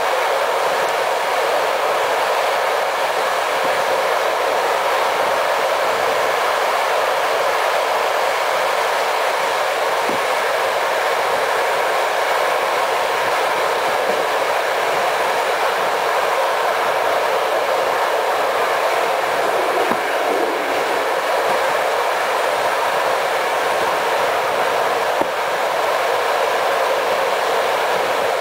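Passenger train carriage running at speed, heard from inside: a steady rush of wheel-on-rail noise and air, with an occasional faint knock.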